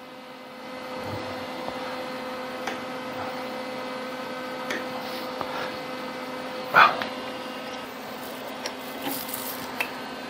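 A few light metal clicks and one short louder knock as a spanner works the jam nut on a mini lathe's headstock spindle, over a steady hum that comes up about a second in.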